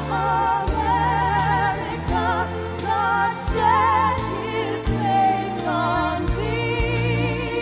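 Music with singing: long sung notes with a wide vibrato over low, sustained accompaniment.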